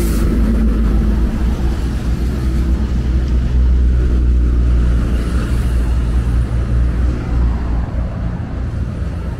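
Road traffic on a city highway: a steady, loud low rumble of passing car and bus engines and tyres.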